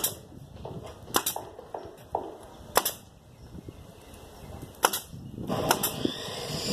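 Pneumatic nail gun firing nails into fence boards, about six sharp shots at irregular intervals with light knocks of the wood between them. Near the end an air compressor starts and runs steadily.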